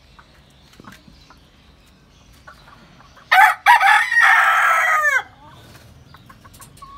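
A rooster crows once, about three seconds in. It gives a short opening note, then a long held call that ends in falling notes.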